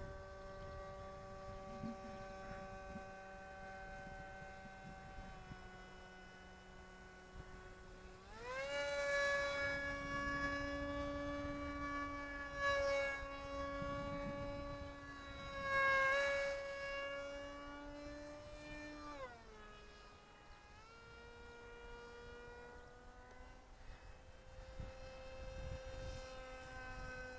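Small electric RC jet's 2200kv Turnigy brushless outrunner motor and propeller whining in flight. The pitch steps up sharply about eight seconds in as the throttle is opened, holds high for about ten seconds, drops back, then slowly rises again.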